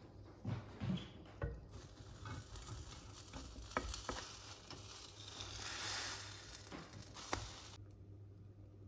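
Nonstick frying pan sizzling on the hob as oil and pancake batter hit the hot surface, the hiss swelling before it cuts off suddenly near the end. A few sharp knocks of a utensil against the pan come in the first second and a half, with more clicks during the sizzle.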